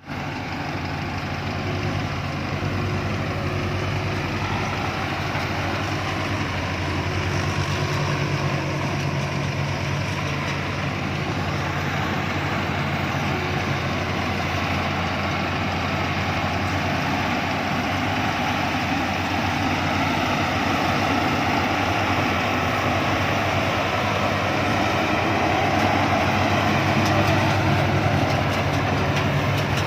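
Rice combine harvester's engine and threshing machinery running steadily, with a deep hum and a broad mechanical rush, growing slightly louder near the end.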